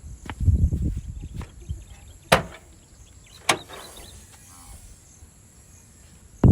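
Low thuds and rustling, then two sharp knocks about a second apart, over a quiet outdoor background.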